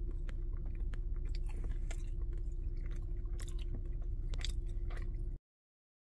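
A man chewing a mouthful of pizza close to the microphone, with small wet clicks and smacks of the mouth, over a steady low hum. The sound cuts off suddenly about five seconds in.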